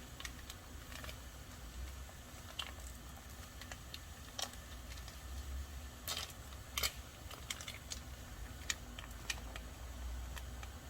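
Scattered light clicks, taps and a few sharper clinks of small kitchen items being handled, over a steady low hum.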